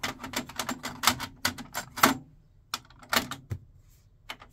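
A run of irregular mechanical clicks and clacks from the Technics SA-EH50 system's cassette deck as its door and transport keys are worked to start a playback test on the freshly re-belted deck.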